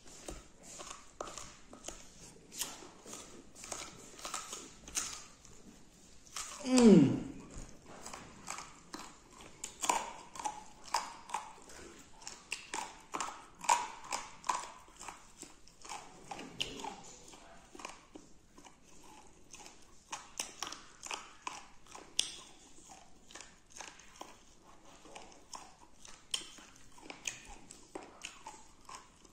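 Close-up chewing and biting of beef on the bone, with many quick wet mouth clicks and smacks. About seven seconds in there is one loud voice-like sound that falls steeply in pitch.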